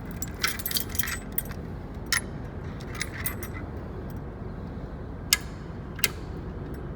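A bunch of keys jangling and clinking in short bursts while a fire alarm pull station is handled, then two sharp metal clicks near the end, less than a second apart.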